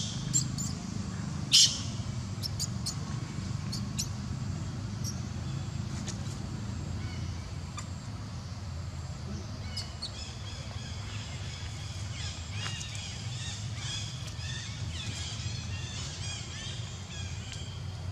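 Outdoor ambience: a steady low rumble with two sharp clicks in the first two seconds, the second the loudest sound, then from about ten seconds in a run of short, high chirping calls.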